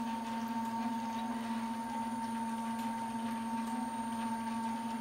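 Homemade filament extruder running steadily, a constant low hum with a higher steady whine over a light hiss.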